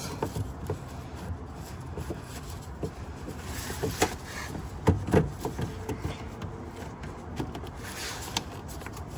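Gloved hands fitting and twisting a headlight's HID ballast into its housing: scattered short plastic clicks and knocks from handling the parts, over a steady low background noise.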